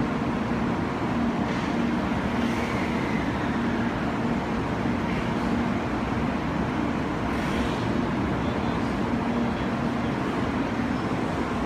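An N700-series Shinkansen standing at the platform, its on-board equipment giving a steady whirring noise with a low hum.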